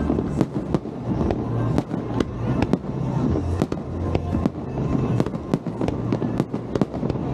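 Aerial fireworks bursting in a rapid, irregular string of sharp bangs, about two or three a second, with music playing underneath.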